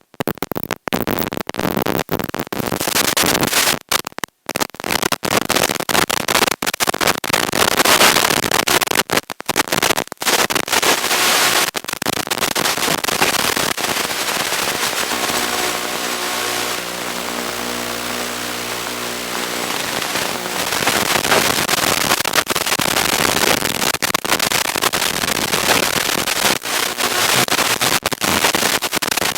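Harsh crackling hiss with many sudden brief cutouts, typical of the audio from an analog FPV camera and video transmitter link on a moving RC truck. Around the middle a steady whine, like an electric motor, comes through the noise for a few seconds.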